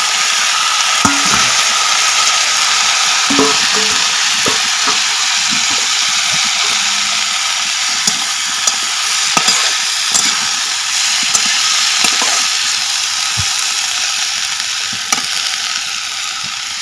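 Chopped Malabar spinach leaves and stems sizzling loudly in hot oil in a steel kadai, with the clicks and scrapes of a steel spatula on the pan as they are stirred. The sizzle eases off slightly near the end as the greens wilt.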